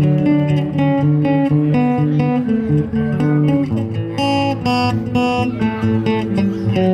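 Acoustic guitars playing the instrumental intro of a song: a line of single picked notes over chords, with lower notes joining about four seconds in.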